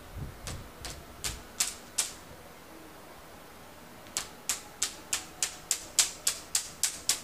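Plastic mesh air-conditioner filter being slapped repeatedly against a wall to knock out caked dust: a run of about five sharp clacks, a pause of about two seconds, then a steadier run of about eleven at roughly three a second.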